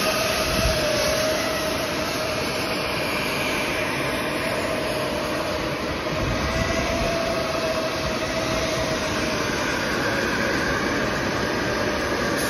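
Hot air welding machine running: a steady rush of blown air with a faint whine that wavers a little in pitch.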